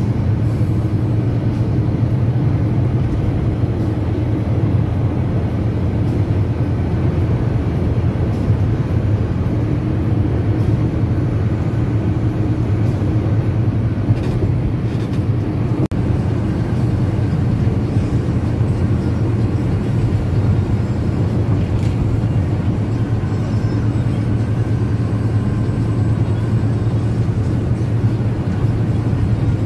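Steady low drone of a coach bus on the move, heard from inside the passenger cabin: engine and road noise running evenly without change.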